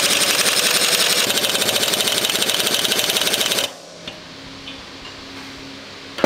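Pneumatic impact wrench hammering in a fast, continuous rattle on a seized wheel-hub nut through a welded adapter tool, then stopping abruptly about three and a half seconds in. The nut is locked tight and does not come loose.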